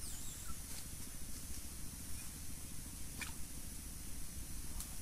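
Outdoor ambience: a steady low rumble and hiss, with a quick falling whistle right at the start and a few faint, short, sharp chirps about one second in, three seconds in and near the end.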